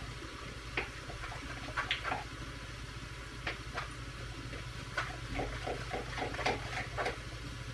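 Loose spätzle dough being stirred in a bowl: irregular wet squelches and short clicks of the utensil against the bowl, over a steady low hum.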